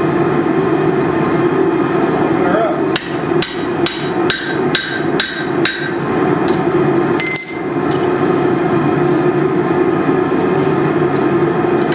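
Hammer blows on steel at an anvil: a quick run of about seven ringing strikes, roughly two and a half a second, starting about three seconds in, then one more ringing blow a couple of seconds later. A steady background noise runs underneath.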